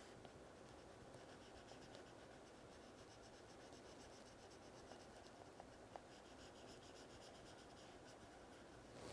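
Faint scratching and tapping of an Apple Pencil tip on an iPad's glass screen, in quick, even back-and-forth colouring strokes. It comes in two runs, the first starting about a second and a half in and the second a few seconds later.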